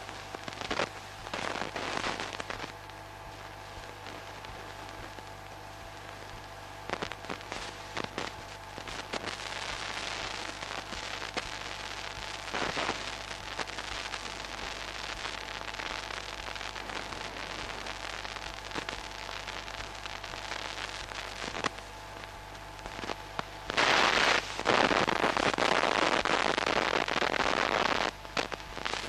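Steady electrical hum and hiss with scattered crackles and clicks, with no voices or music. A much louder stretch of hiss comes in near the end and stops shortly before it finishes.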